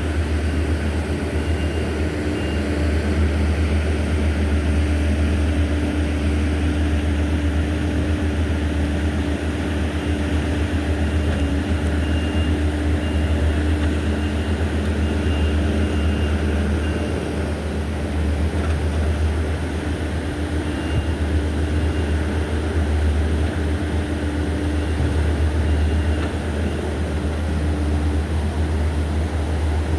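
A vehicle engine running steadily: a constant low rumble with a steady hum above it and no change in speed.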